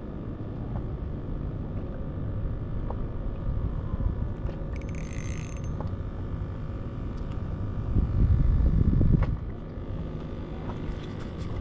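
Wind on the microphone and water against the hull of an inflatable dinghy, a steady low rumble with a louder gust about eight seconds in and a few small clicks near the end.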